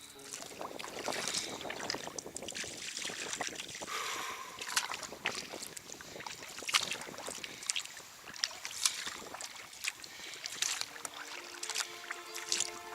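Sea kayak paddles dipping and splashing in the water, with sharp splashes and drips roughly once a second over a steady wash of water noise.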